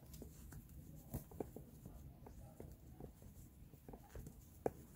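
Faint handling sounds of cardboard gift-box and paper packaging: scattered light taps and scratchy rustles, with one sharper click near the end.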